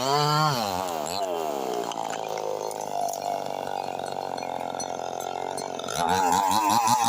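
Chainsaw cutting very hard wood. Its engine pitch wavers, drops about a second in and runs lower for several seconds, then climbs again near the end.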